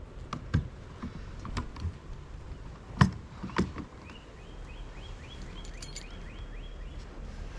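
A few sharp knocks, the loudest about three seconds in. Then a bird calls a quick series of short repeated high notes, about four a second, for nearly three seconds, over a low steady rumble.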